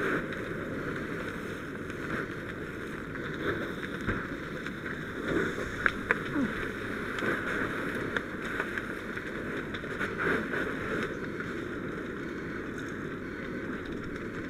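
Fire hose stream spraying water into a burning building: a steady rushing hiss of water and fire, with a few sharp pops scattered through it.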